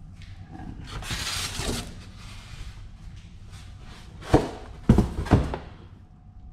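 Polystyrene foam packing tray scraping and rustling against a cardboard box as it is lifted out, then three knocks in quick succession a little past the middle.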